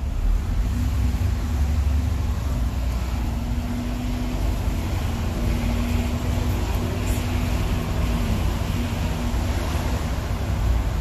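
Bus engine and road noise heard from inside the moving bus: a steady low rumble with an engine drone that eases about eight seconds in.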